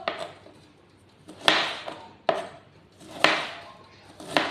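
A kitchen knife chopping on a plastic cutting board: about five separate, sharp chops at irregular intervals, roughly a second apart.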